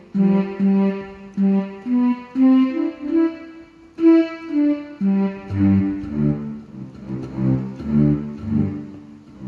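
Casio CT-X700 digital keyboard playing a simple melody one note at a time; about halfway through, lower notes join in underneath as an accompaniment.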